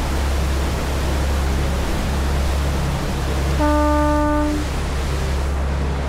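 A ship's horn sounds once, a steady single-pitched blast of about a second, a little over halfway through, over the steady low drone of the ferry's engines and the rush of wind and water on deck.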